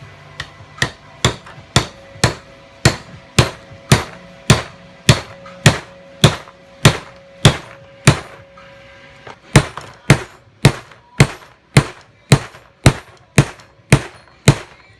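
Hammer blows on a bushing installer driving a new shaft bushing into a Saginaw power steering pump housing, about two sharp metallic strikes a second. The blows pause briefly about eight seconds in, then carry on to seat the bushing flush.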